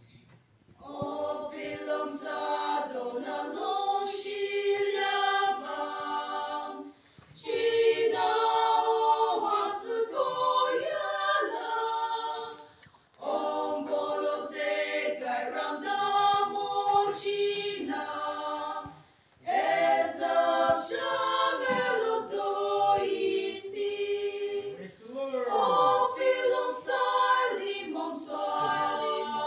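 A small group of women singing a sacred song a cappella, in phrases of about six seconds with brief pauses between them.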